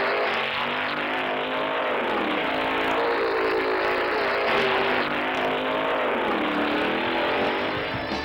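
Open-wheel race car engine running hard, its pitch climbing and dropping again several times as it accelerates and backs off.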